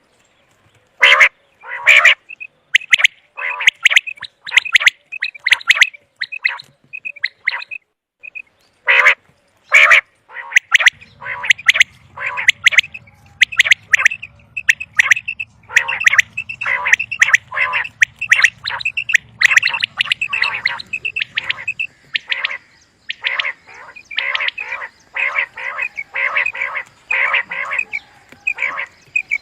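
Common quail calling over and over: short, sharp notes repeated in quick runs. A faint low hum sits under the calls through the middle.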